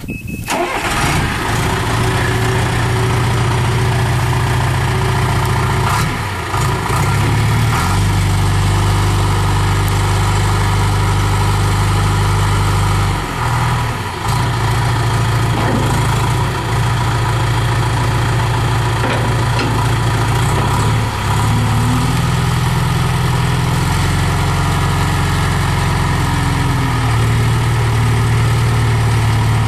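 John Deere 310E backhoe loader's four-cylinder 4045D diesel engine catching at the very start, then running, its note stepping up and down several times.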